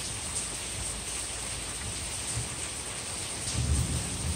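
Steady rain hissing, with a low rumble of thunder building near the end.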